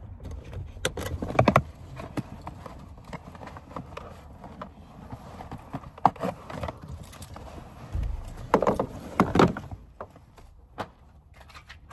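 Plastic clunks and clicks of a child car seat being unfastened and handled in a car's back seat, in three clusters of knocks: about a second and a half in, around six seconds, and around nine seconds.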